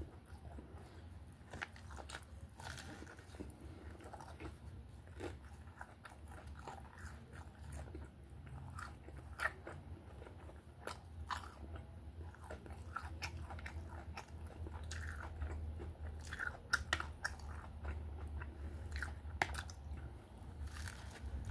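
Close-up chewing and crunching of a toasted Reuben sandwich: irregular crisp bites and wet chewing sounds, over a steady low hum.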